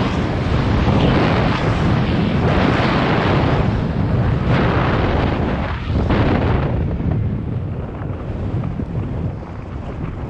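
Wind rushing over the camera microphone during a fast run on skiboards through fresh powder, mixed with the hiss of the boards cutting the snow. The rush swells and eases in waves during the first two-thirds, then settles into a duller, steadier rush.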